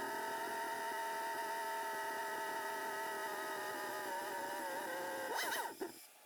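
Dodge Ram 1500's 4.7 L V8 engine held at a steady raised speed, then revved briefly about five seconds in before the sound cuts off abruptly.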